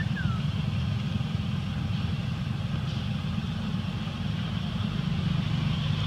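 Steady low rumble, like a motor engine idling, that holds level throughout.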